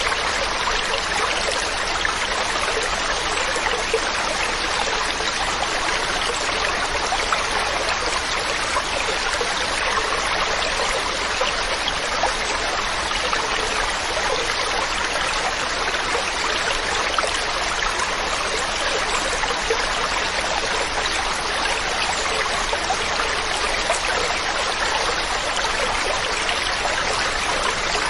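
Mountain stream running over rocks, a steady, even rushing and trickling of water.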